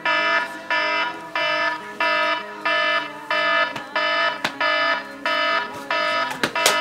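Electronic alarm clock beeping, one harsh beep about every two-thirds of a second, with a few sharp knocks near the end.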